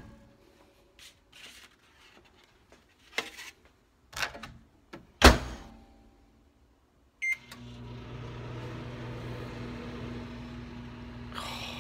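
Microwave oven being loaded and started: a few light knocks and clicks, a loud clunk about five seconds in, a short keypad beep, then the microwave running with a steady hum.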